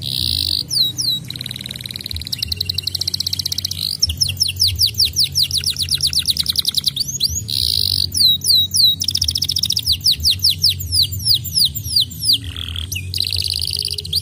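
Domestic canary singing a long, unbroken song of fast trills: quick runs of down-slurred notes and buzzy rolls, switching to a new trill every second or two.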